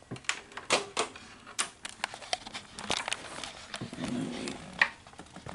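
Irregular light clicks and taps, about a dozen spread over a few seconds: handling noise from working over an opened Betamax VCR's circuit boards.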